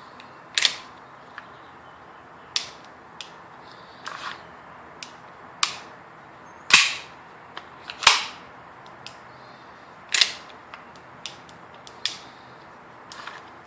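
WE M92 metal gas-blowback airsoft pistol being worked by hand: a run of sharp metallic clacks from its slide and hammer, the louder ones coming every one to two seconds with small ticks in between.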